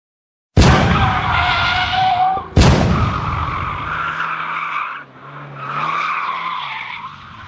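Race-car sound effects: engine noise and tyre squeal cut in suddenly about half a second in and again about two and a half seconds in. A high squeal then carries on over a lower engine note, with a dip about five seconds in.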